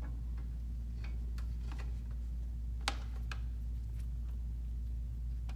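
Light clicks and taps as a loosely mounted AlienBees studio strobe and its stand fitting are handled; the sharpest click comes about three seconds in. The mount has not been tightened enough. A steady low hum runs underneath.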